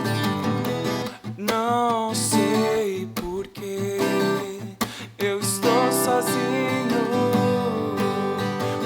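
Acoustic guitar strummed in a song, with a wavering melody line held over the chords.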